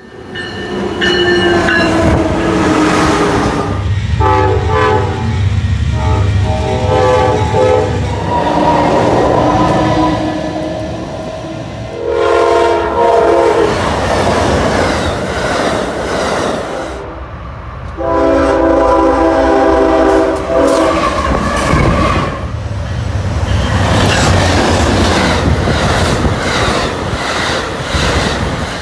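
Amtrak passenger trains passing close by, with a steady rumble and wheels clicking over the rail joints. The locomotive horn sounds a chord in long blasts about 4, 12 and 18 seconds in.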